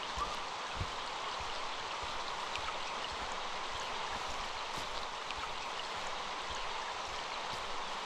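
Forest stream running steadily, a continuous wash of water, with a few soft low thumps of footfalls on the dirt track.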